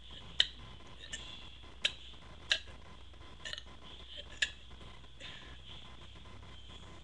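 Short, sharp clicks from a person's throat and mouth, about seven of them, irregularly spaced under a second apart, as air is swallowed to work up a burp.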